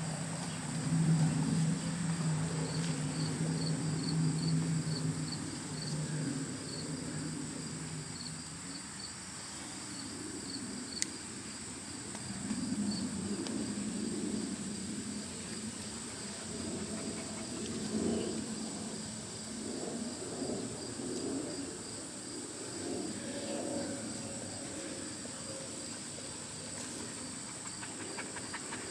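Crickets chirping in a steady, evenly spaced rhythm over a continuous high insect trill. A low droning hum comes and goes beneath them, loudest in the first few seconds.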